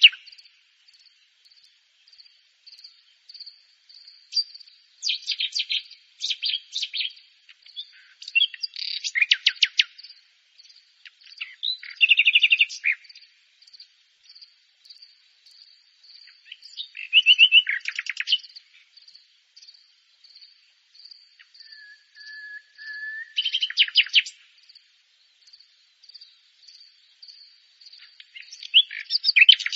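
Common nightingale singing: separate phrases of a second or two with pauses between, mostly fast runs of repeated notes, and about three-quarters through a long steady whistle that breaks into a rapid trill. A faint, even pulsing high note runs underneath.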